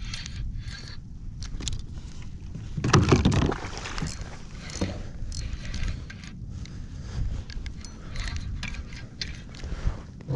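Choppy lake water slapping and splashing around a small fishing kayak, with wind rumble on the microphone and scattered knocks and rustles of handling. A louder splash or thump comes about three seconds in.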